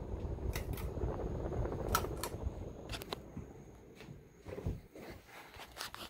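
Casablanca Delta II ceiling fan running: a low rumble of moving air that fades over the few seconds, broken by several sharp clicks and knocks.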